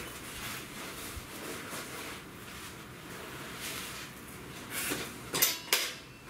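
Bicycle being handled and pulled out: a few short clatters and rattles about five seconds in, over a faint background hiss.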